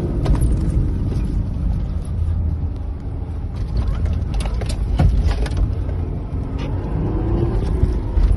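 Car driving fast over rough snowy ground, heard from inside the cabin: a steady low engine and tyre rumble, with several sharp knocks and rattles as the vehicle bumps along.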